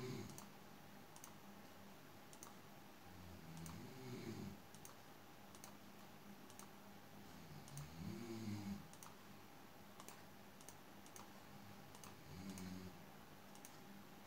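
Near silence with faint, irregular clicks, about one to two a second, as text is entered one key at a time on an on-screen keyboard.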